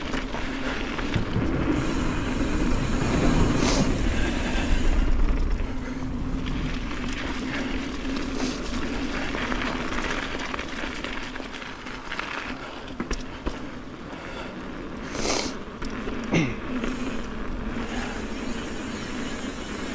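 Mountain bike rolling along a dirt path and then pavement: steady tyre noise with wind rumbling on the camera microphone, heaviest a few seconds in, and a few brief rattles later on.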